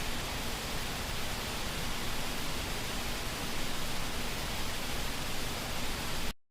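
Steady rush of falling water from a waterfall, an even noise that cuts off suddenly near the end.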